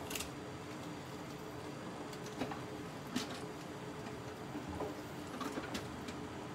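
Pork cartilage simmering in a stainless stockpot, with a few short pops and ticks of bubbling over a steady low hum.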